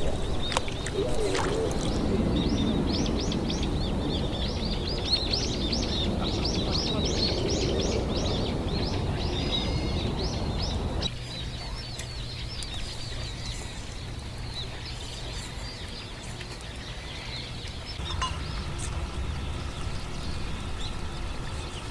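Many small birds chirping in quick short rising calls, densest in the first half. Under them a low rumble cuts off suddenly about halfway, leaving a faint steady hum.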